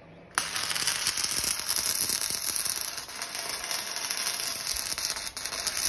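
Electric stick (arc) welding on the iron door frame: a steady crackling hiss that strikes up suddenly about a third of a second in, as a flat strip is welded in place.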